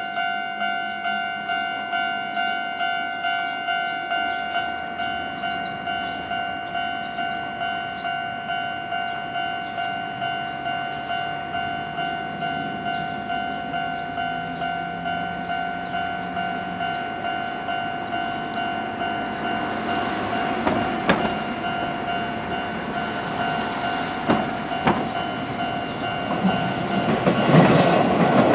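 Japanese level-crossing warning bell dinging in a steady even rhythm. Partway through, an Izuhakone Railway electric train approaches, its wheels clicking over rail joints, and grows loud near the end.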